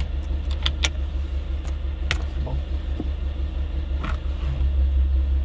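A steady low rumble with a few sharp clicks and knocks: the steering wheel being worked loose from the column once its centre bolt is out.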